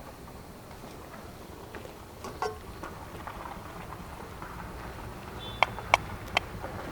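A few light clicks and taps of tableware being handled, with three sharp clinks in quick succession near the end, over a faint steady background.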